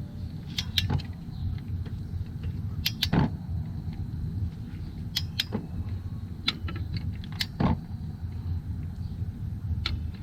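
Wrench and socket clicking and clinking against metal as a bolt on the engine's timing-chain components is tightened, with sharp clicks every second or so, several in close pairs. A steady low hum runs underneath.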